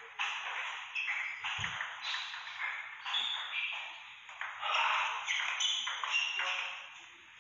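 Table tennis rally: the ball ticking quickly back and forth between paddles and table, with a ringing echo of the hall, and a low thump about one and a half seconds in. The ticking dies away near the end as the point finishes.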